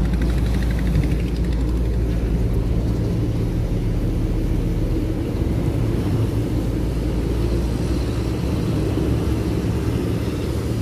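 Steady low hum of a ship's diesel engines running, its tone shifting about three seconds in.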